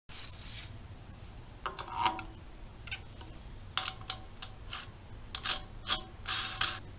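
Plastic clicks, taps and scrapes as a Pops-A-Dent paintless dent puller's plastic bridge is handled and set over the pull tab glued to the motorcycle's fuel tank: a scatter of short, sharp sounds, the loudest few near the end.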